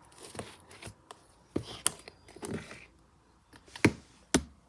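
Fluffy slime made from glue, shaving cream and saline solution being stirred in a bowl: irregular sticky clicks and scraping, with a few sharper clicks near the end.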